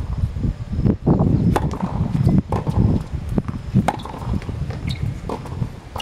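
Tennis rally on a hard court: a series of sharp pops from racket strikes and ball bounces at irregular intervals, with footsteps. A fluttering low rumble of wind on the microphone runs underneath.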